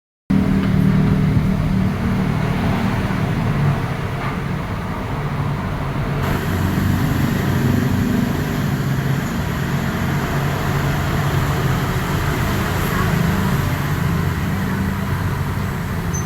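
Steady road-traffic noise with a low engine drone.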